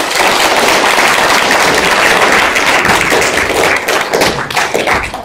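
Congregation applauding: loud, steady clapping of many hands.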